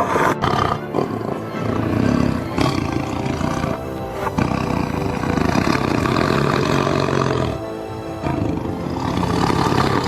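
Tiger roaring over background music.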